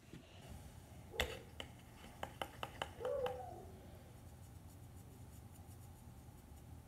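Small plastic clicks and taps of makeup being handled while blush is put on: one sharp click about a second in, then a quick run of lighter clicks over the next two seconds, followed by a brief short hum of a voice.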